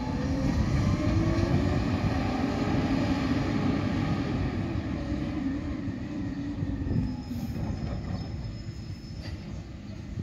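Garbage truck's engine revved hard, its pitch held high for several seconds, then dropping and fading as the truck pulls away.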